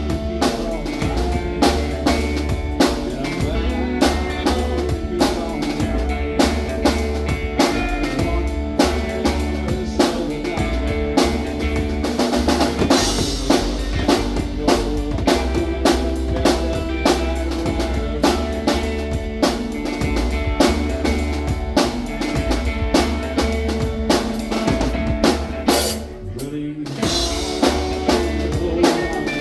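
Live band playing a rock song: a drum kit keeps a steady beat of kick and snare over bass and other instruments, with a brief drop in level about 26 seconds in.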